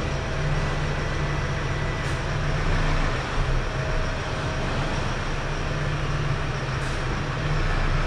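Minivan engine running while the van is backed up and re-parked in an underground car park, a steady low hum that stops near the end as the engine is switched off.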